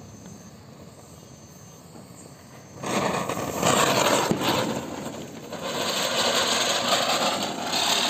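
Anil 'Chakkar Special' ground chakkar (a Diwali ground-spinner firework) catching about three seconds in and spinning with a loud, steady hiss of spraying sparks, which dips briefly a little past halfway. Before it catches, only a faint hiss.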